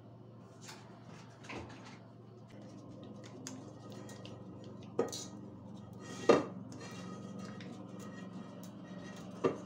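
A multicooker's metal inner pot being greased with butter by hand: soft rubbing inside the pot, with three sharp knocks of the pot as it is handled, about five, six and nine and a half seconds in, the middle one the loudest.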